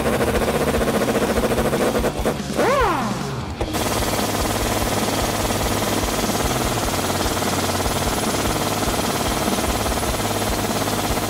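Impact wrench hammering rapidly on the U-bolt nuts of a rear leaf spring, in a short run and then a long steady run after a brief break about three and a half seconds in.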